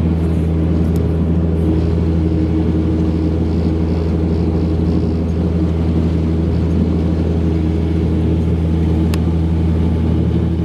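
Narrowboat's diesel engine running steadily at maximum power, a deep even drone, as the boat pushes against a strong flood current.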